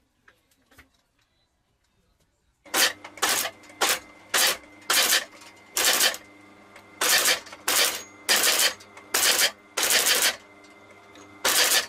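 SABA sole-stitching machine in a shoe repair shop starting up about three seconds in: a steady motor hum with a string of loud, short stitching bursts, about a dozen, each under half a second, as a sole is fed under the needle.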